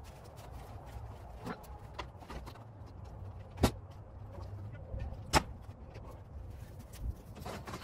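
Scattered wooden knocks and thumps as heavy oak rounds are shoved up a ramp and onto a utility trailer, with two louder thumps about three and a half and five and a half seconds in.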